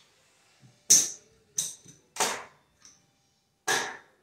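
Casino chips clacking as they are handled and set down on a craps layout: four sharp clicks over about three seconds, the first the loudest.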